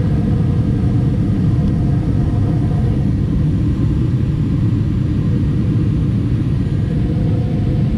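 2012 Bryant Legacy Line gas furnace running with its burners lit, a steady low rumble.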